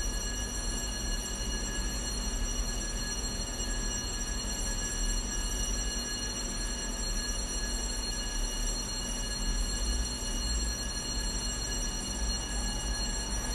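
Electric school fire alarm bell ringing without a break, a loud steady ring with several bright high overtones over a low hum. It is the signal for the start of a lesson or a break, or a fire warning.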